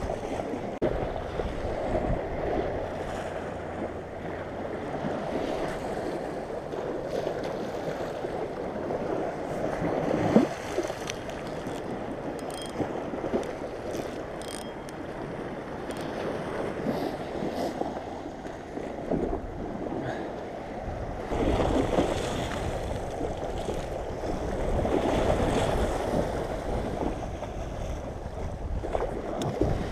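Waves slapping and washing against a concrete seawall in a steady churn, with wind gusting on the microphone. One sharp knock about ten seconds in.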